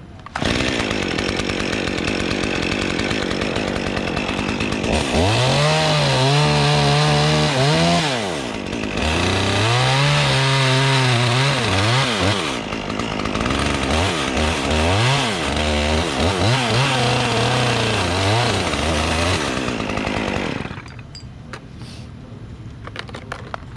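Gas chainsaw running hard, revved up and down several times as it cuts limbs from a tree, its pitch rising, holding and dropping with each cut. It cuts off sharply about 21 seconds in, leaving a few faint clicks.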